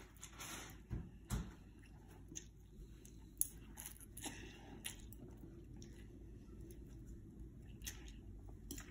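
Faint slurping and chewing of a mouthful of instant ramen noodles eaten with chopsticks, with a few small clicks along the way.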